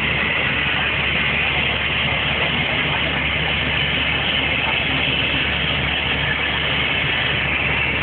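Black Hawk-type military helicopter running on the ground, its turbine engines and rotor giving a steady, unbroken noise.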